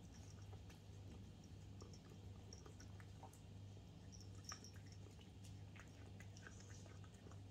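Domestic cat eating wet cat food from a plate: faint, quick wet chewing and lip-smacking clicks, one a little louder about halfway through.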